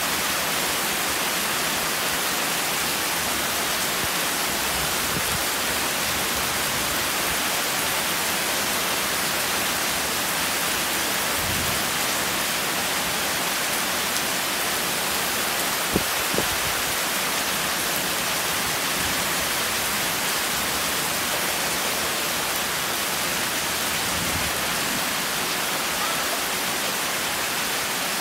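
Heavy rain falling steadily at night, with water streaming off a roof edge, a constant even hiss. Two short knocks come about halfway through.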